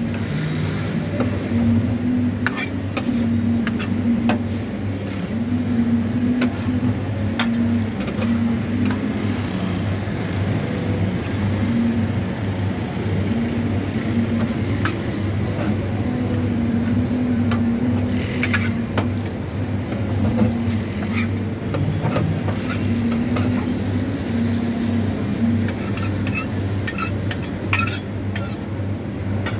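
Two metal spatulas chopping and scraping an ice cream mixture on a steel cold plate, with frequent irregular clicks and scrapes of metal on metal. A steady low hum runs underneath.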